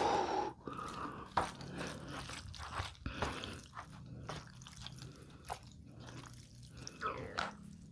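Jjajangmyeon noodles being worked in thick black bean sauce: soft, wet, sticky squishing with scattered sharp clicks.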